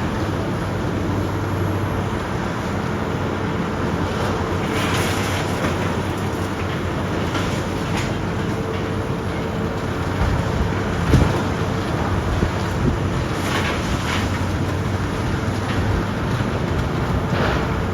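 Heavy demolition machinery running steadily with a low engine hum, with scattered knocks and crunches of concrete debris being broken.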